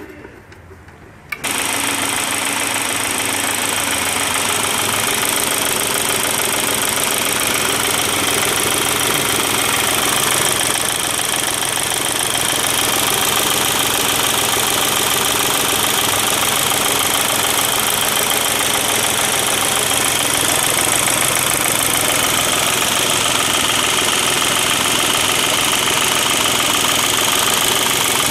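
Volkswagen diesel engine, its fuel pump just refitted after the pump's broken mount was repaired, running steadily. The engine sound comes in suddenly about a second and a half in.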